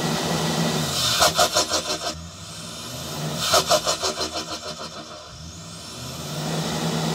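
2022 Chevrolet Silverado's modified engine, with twin 5-inch exhausts, free-revved about every three seconds. Each rev swells with a faint rising whistle, and on each lift-off a rapid fluttering of about nine pulses a second dies away.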